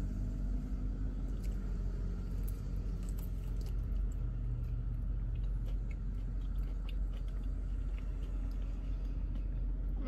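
A person chewing a crispy fried chicken wing close to the microphone: scattered small crunches and mouth clicks over a steady low hum.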